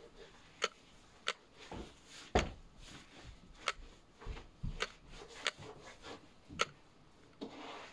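Sharp clicks at uneven intervals, about seven in all, mixed with a few duller knocks and a soft rustle near the end.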